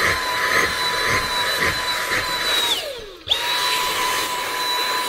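Dyson V7 cordless stick vacuum with a crevice tool running with a steady high motor whine. A little under 3 seconds in, the trigger is released and the whine falls away as the motor winds down. About half a second later it cuts sharply back in at full speed.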